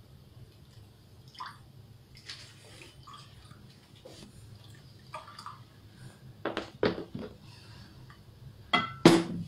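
Warm water poured from a plastic jug into a funnel, with scattered plastic knocks and two louder clunks in the second half as the containers are handled.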